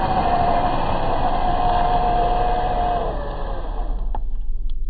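Traxxas TRX4 RC crawler's electric motor and drivetrain whining steadily under way. The whine drops slightly about three seconds in and stops near four seconds, followed by a single click.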